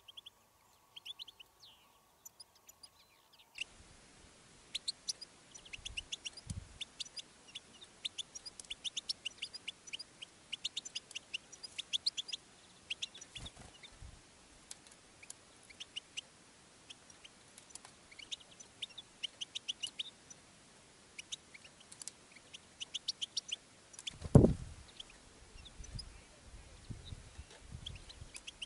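European goldfinches twittering and calling: a dense run of rapid, short, high chirps, a caged goldfinch calling to a wild one nearby. A loud low thud comes near the end.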